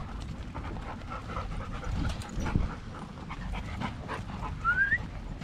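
Dogs panting close by, with a short rising whine about five seconds in and a couple of dull bumps about two seconds in.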